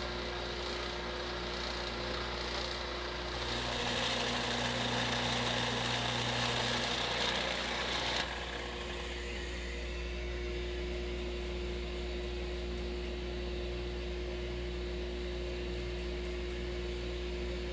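An electric power tool's motor running steadily, with a louder, rougher stretch from about three and a half to eight seconds in while steel, most likely the cleaver blade, is worked against it. It cuts off at the end.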